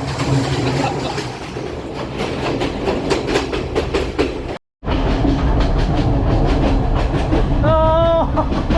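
Passenger train running along the track, heard from on board: wheels clicking over the rail joints above a steady rumble. The sound drops out for a moment a little past halfway, then the rumble comes back louder, with a short high call near the end.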